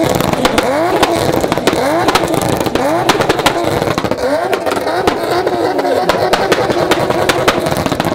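Tuned car engine in a BMW E60 saloon revved hard over and over, one rising rev about every second that falls back each time, with crackling pops from the exhaust.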